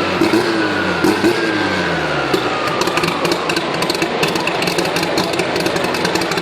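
Chevrolet Opala straight-six engine coming off the throttle, its pitch falling over the first two seconds or so. It is followed by a rougher stretch with many sharp crackles.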